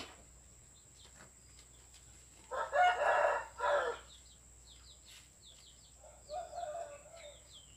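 A rooster crows once, a loud call about a second and a half long starting some two and a half seconds in. A shorter, fainter call follows about six seconds in, with small bird chirps around it.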